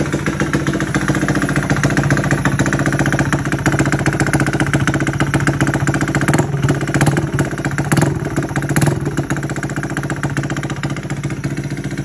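Honda Grom's single-cylinder engine, fitted with a 181cc big-bore kit, idling steadily on its first start after the rebuild. A few sharp clicks come through about seven to nine seconds in.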